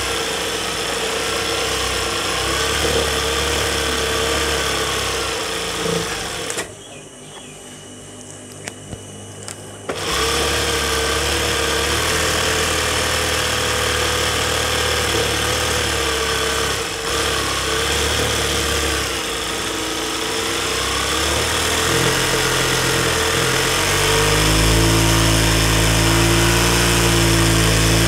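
Sewing machine running as it stitches a petticoat hem. It stops for about three seconds, with a few light clicks, then runs again and speeds up near the end.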